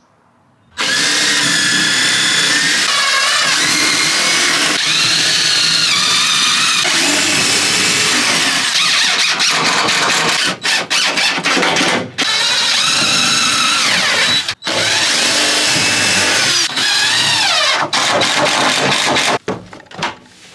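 Power drill running, starting about a second in, its pitch repeatedly rising and falling as the speed changes, with several brief stops.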